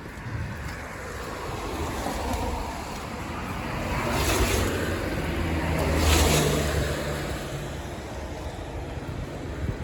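Traffic on a wet road: tyre hiss and engine hum swell up twice, around four and six seconds in, as vehicles pass, over steady outdoor noise.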